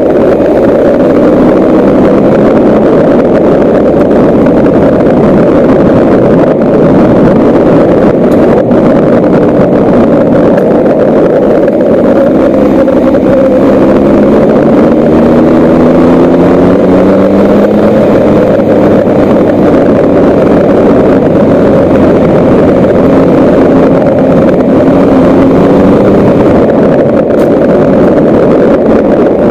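Vehicle driving on a gravel road: its engine runs with a pitch that rises and falls slowly as speed changes, under heavy wind noise on the microphone and tyre noise on gravel.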